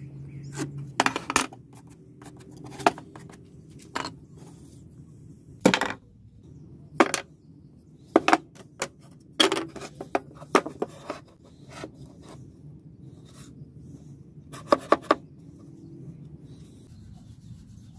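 Wooden blocks being handled, set down and fitted together on a metal table saw top: about fifteen sharp wooden knocks and clicks at irregular intervals, with a quick run of three near the end and light rubbing and scraping between.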